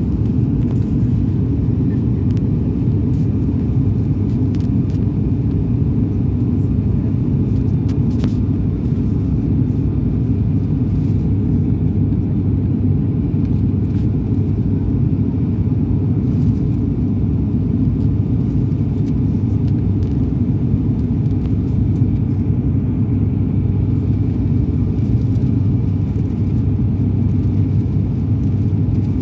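Steady low rumble of a moving vehicle, heard from inside its cabin.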